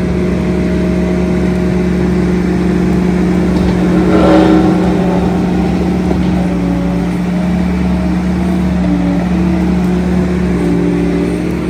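Skid steer engine working hard under load while its Coneteks 2.13M rotor head grinds stumps, roots and soil, with a louder surge of grinding about four seconds in.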